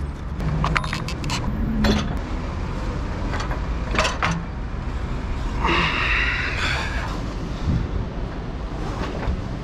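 Clicks and knocks of a car roof rack being unfastened and handled on the roof, with a scraping slide about six seconds in, over a steady low rumble.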